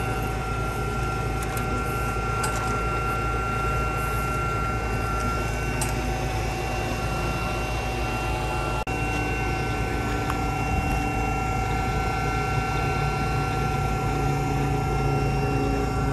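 Truck-mounted hydraulic skid running, a steady hum with a constant high whine, as it lowers an electric submersible pump into a well.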